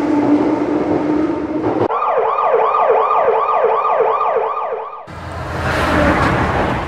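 Emergency-vehicle siren sounding a fast rising yelp, about three sweeps a second, starting about two seconds in and cutting off abruptly after about three seconds. It is preceded by a steady hum with hiss and followed by a swelling rush like a vehicle passing.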